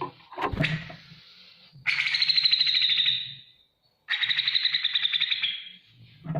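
Grey-cheeked bulbul (cucak jenggot) song: a few short sharp notes, then two long, rapidly pulsed rasping phrases, each under two seconds with a short break between them.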